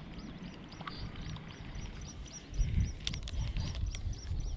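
Small birds chirping continuously, a quick run of short, high chirps several times a second. From about halfway a low rumble on the microphone comes in and grows louder, with a few sharp clicks around three seconds in.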